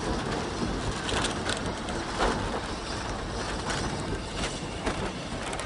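Railway carriage running slowly along the track: a steady rumble and rattle of wheels and coachwork, with frequent irregular clicks and knocks.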